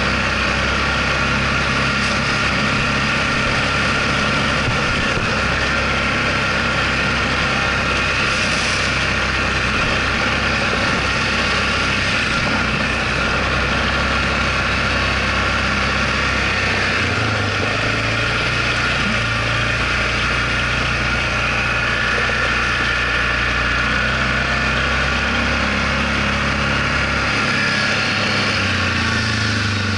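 Yamaha ATV engine running while the quad is ridden, a steady drone whose low note shifts a couple of times, near the middle and near the end, as the engine speed changes.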